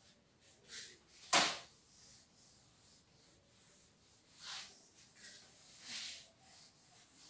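Cloth wiping a whiteboard in several soft rubbing strokes, with one short, louder noise about a second and a half in.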